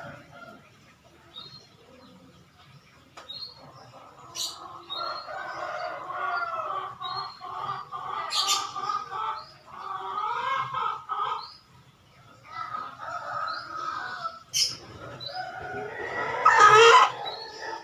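A chicken calling, with repeated bending squawks and cries in runs of a second or more, the loudest near the end. Short high chirps of small birds and a few sharp clicks sound between them.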